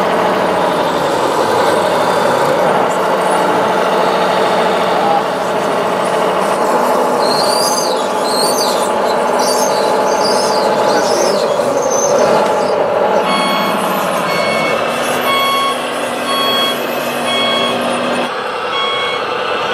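Simulated diesel engine sound from the sound modules of radio-controlled scale trucks and construction machines, running steadily. In the middle come a few seconds of high, wavering squeals. From about two-thirds of the way in, a reversing beeper sounds about once every 0.8 s.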